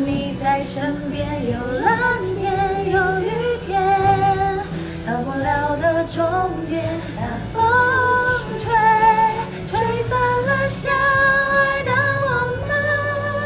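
A woman singing a slow melody with vibrato, holding several long notes, over a sustained low accompaniment.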